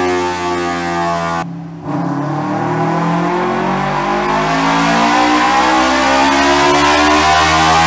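Kawasaki Ninja 250 FI parallel-twin with a full-system aftermarket exhaust running on a chassis dyno. Its note holds steady, drops out briefly about a second and a half in, then climbs steadily in pitch as the revs build under load.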